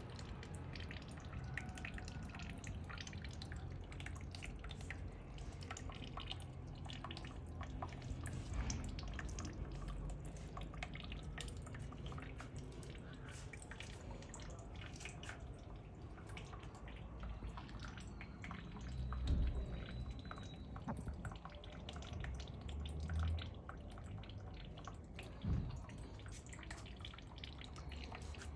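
Water dripping and trickling, many small drops falling at irregular intervals over a low steady hum, with a few louder bumps in the second half.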